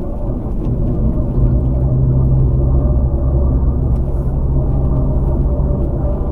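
Land Rover Freelander driving on the road: engine and tyre noise as a steady low hum, growing a little louder about a second in.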